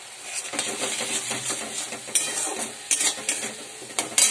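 Spice paste sizzling in oil in a pan as it is stirred with a spatula, with scraping and several sharp knocks of the spatula against the pan in the second half, the loudest near the end. The masala is being fried down (kosha) in the oil.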